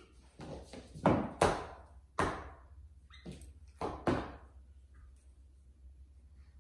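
Sharp knocks and clatters of shoes being pulled out of a closet and dropped onto the floor by a rummaging pet monkey, with a high-heeled shoe among them. There are about eight hits in the first four and a half seconds, then it goes quiet.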